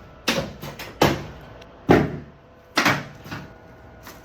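Four heavy thumps about a second apart, each with a short ringing tail.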